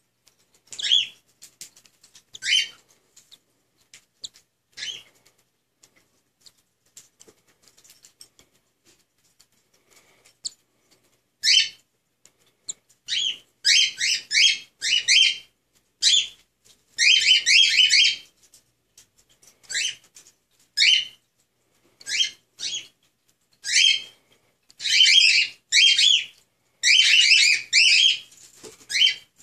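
Baby cockatiel chicks chirping: short, high calls, a few scattered ones at first, then coming often and in quick runs of several from about halfway through.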